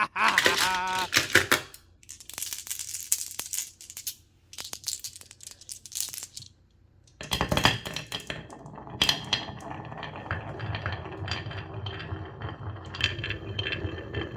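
Marbles clattering and clicking along a marble run track, then from about seven seconds in a continuous rolling rumble of marbles running down the course, with sharp clicks as they knock together.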